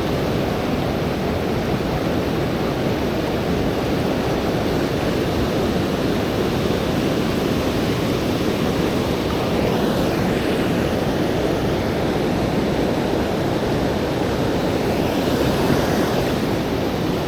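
Steady rushing of a river's fast current running high after a rise in the water.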